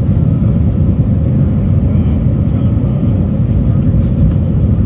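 Steady low rumble of an Airbus A319's jet engines and rushing air, heard inside the passenger cabin during the climb after takeoff.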